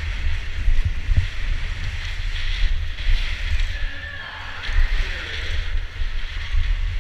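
Wind buffeting a GoPro's microphone on a BMX bike ridden fast over a packed dirt track, a steady low rumble with the hiss of the tyres on the dirt.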